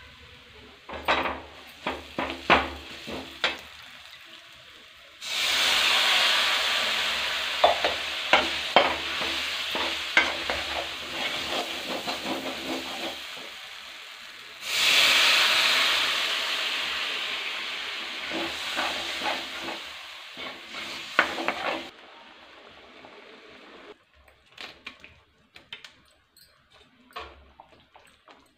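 Masala frying in a steel kadhai, stirred and scraped with a metal skimmer that clinks on the pan. Two sudden loud sizzles, about 5 and 15 seconds in, each slowly die away, the sound of liquid hitting the hot, oily masala. Near the end only light scraping and clinks remain.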